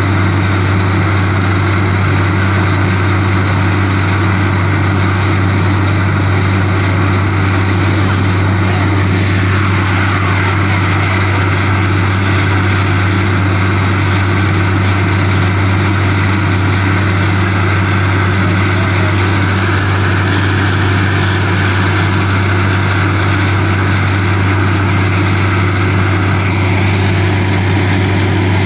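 Truck-mounted borewell drilling rig running steadily while drilling: a loud, constant low engine drone with a hiss over it, unchanging throughout.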